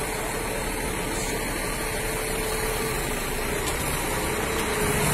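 Diesel engine of a Scania K360 coach running steadily at low revs as the coach moves slowly past.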